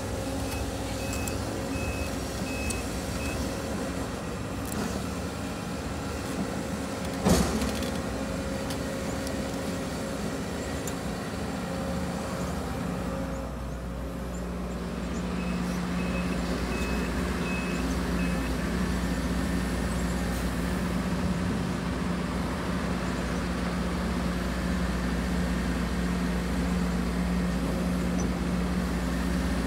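Case CX210D excavator's diesel engine running steadily under hydraulic work, its note growing stronger about halfway through as the machine digs and swings. A pulsed beeping alarm sounds twice, and a single sharp bang stands out about seven seconds in.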